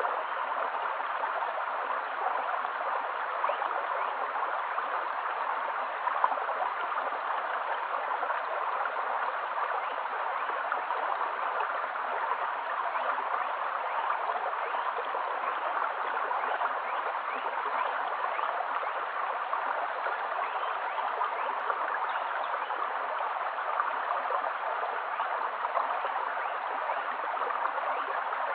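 Shallow, stony creek flowing, a steady, even sound of running water.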